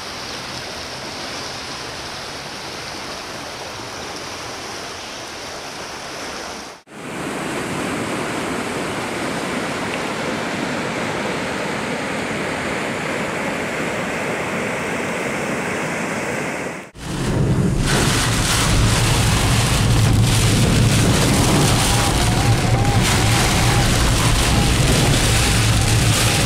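Floodwater rushing in a swollen river and pouring over a flooded road, a steady wash of water noise broken by two short dropouts. About two-thirds through it turns louder: inside a car driving in heavy rain, with a steady low engine hum under rain on the windscreen.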